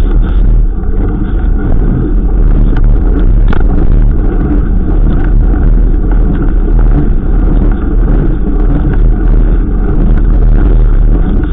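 Steady, loud wind rumble on the microphone of a camera riding along on a moving mountain bike, with a few faint knocks from the bike going over the ground.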